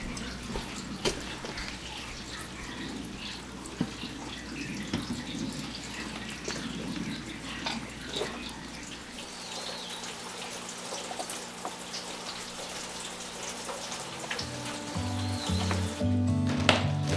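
Water running and splashing, as from a tap into a sink, with small knocks and clicks. Background music with steady low notes comes up in the second half and grows louder near the end.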